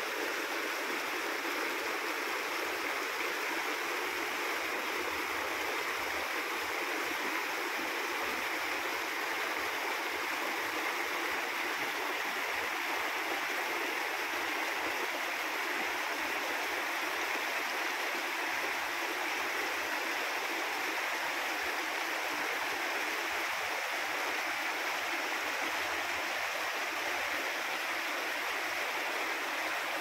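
A small stream of water cascading over rocks, a steady, even rush and splash.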